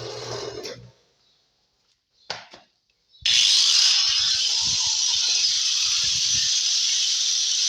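A handheld power tool starts up suddenly about three seconds in and runs steadily as it cuts into the wooden speaker box, after a few handling knocks and a click.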